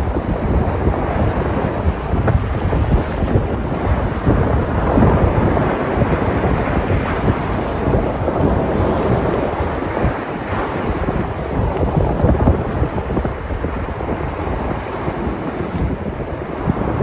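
Sea surf washing and breaking on the shore in a continuous rush that swells and eases with the waves. Wind rumbles on the microphone underneath.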